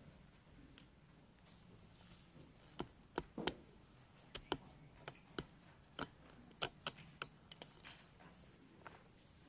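A dozen or so sharp clicks and knocks, irregularly spaced, from about three seconds in until near the end, over quiet room tone: people moving into place, with footsteps and the handling of sheet-music folders and stands.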